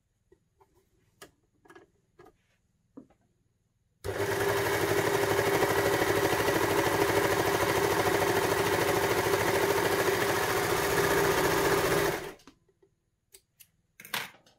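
Baby Lock Victory overlocker (serger) stitching the edge of a piece of denim. It starts about four seconds in, runs steadily at speed for about eight seconds, then stops. A few light handling clicks come before and after it.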